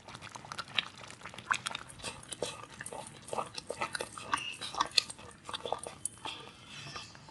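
Wooden spatula stirring thick broken-rice upma in a steel kadai as it cooks down in tamarind water, giving irregular wet pops, squelches and clicks.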